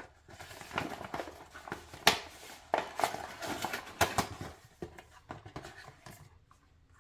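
Gift wrapping or a gift bag rustling and crinkling as a present is handled and opened, with a few sharp crackles and snaps; it dies away near the end.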